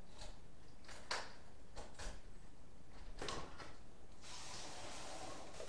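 Apartment front door being unlocked and opened from outside: a series of sharp clicks and knocks from the key, lock and latch, then a steady rustling noise about four seconds in as the door swings open.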